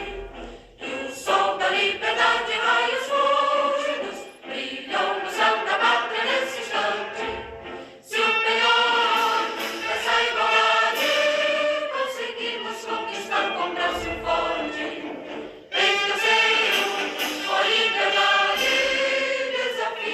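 A choir singing sustained choral music, with two brief breaks between phrases.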